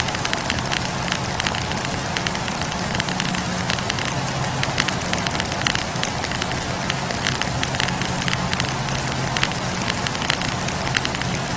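Wood fire burning: frequent irregular pops and snaps of burning firewood over a steady hiss, with a low steady hum underneath.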